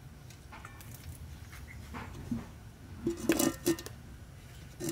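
Aluminium cooking pot set down on a metal stove top: a few loud clanks with a short metallic ring about three seconds in, and a lighter knock near the end, over faint crackling of the wood fire.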